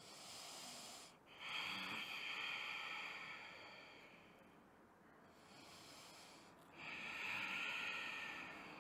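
A woman's slow, deep breathing during a held yoga pose: a short breath at the start, then a long breath that swells and fades, and another swelling breath near the end.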